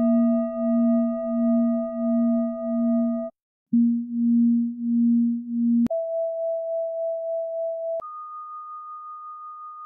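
Tibetan singing bowl ringing, its low fundamental and several higher overtones sounding together, the low note wavering with a slow beat. Then the bowl's tones are heard one at a time, in steps of rising pitch: first the low fundamental alone, then a higher overtone, then a higher one still, each cut off sharply.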